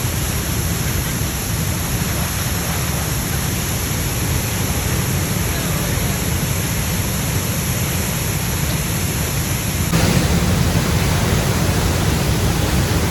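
Dam's emergency discharge jet of water blasting out: a loud, steady rush of water and spray, stepping up slightly about ten seconds in.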